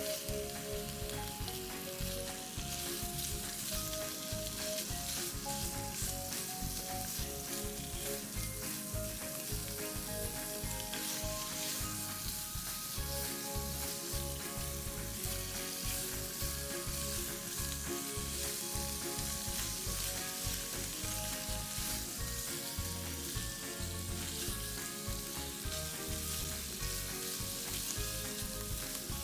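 Thin-sliced pork frying in sesame oil in a nonstick frying pan, sizzling steadily while a silicone spatula stirs and turns the meat.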